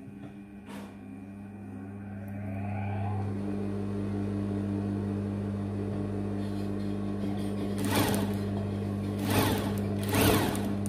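Industrial single-needle sewing machine's motor running: its hum rises in pitch as it comes up to speed over the first few seconds, then holds steady. Near the end come three short noisy bursts as the machine is worked on the cloth.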